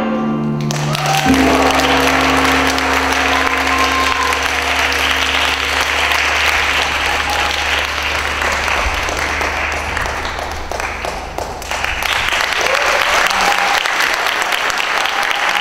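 Audience applauding steadily as the last notes of a traditional Vietnamese instrumental piece die away at the start.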